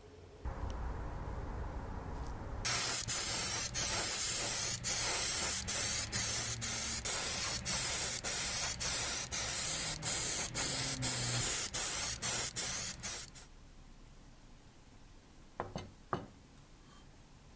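An airbrush spraying paint onto a plastic model car body. A softer hiss comes first, then a loud spray hiss that breaks off briefly about twice a second as the trigger is eased. It stops suddenly, and two light taps follow near the end.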